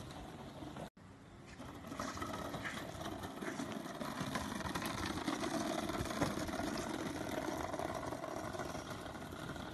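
Wheelbarrow being pushed, its wheel rolling over the ground with a steady rattling rumble and small clicks. The sound begins about a second in and builds over the next second.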